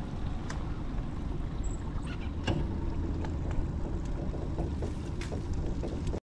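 Wind rumbling on the microphone, with a few faint light ticks scattered through it; the sound cuts off suddenly just before the end.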